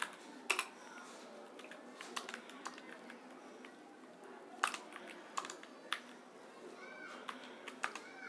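Computer keyboard keys clicking in scattered, irregular keystrokes, sometimes two in quick succession, with pauses between.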